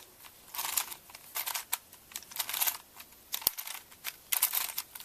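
Plastic twisty-puzzle cube (Crazy 3x3x3 Plus Venus) being turned by hand, its layers clicking and clattering in a run of separate quick turns as a corner-cycling move sequence is carried out.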